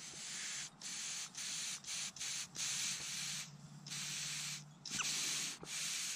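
About nine short hissing puffs of breath blown into the fuel inlet of a Briggs & Stratton float carburetor, testing whether the float's needle valve shuts off the flow.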